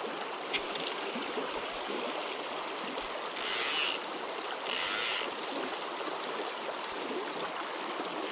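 Fly reel's click-pawl ratchet buzzing as line is pulled off it in two quick pulls, over the steady rush of river water.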